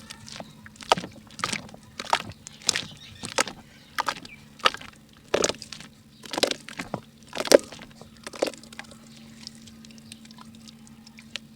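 Pink ASMR mud being crumbled by hand: a run of short, crackly crunches about one every half to one second, dying away after about eight seconds, over a faint steady low hum.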